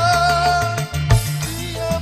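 Live dangdut band playing an instrumental: a lead melody instrument holds one long wavering note over a steady bass and hand-drum beat, then breaks off with a drum hit about a second in.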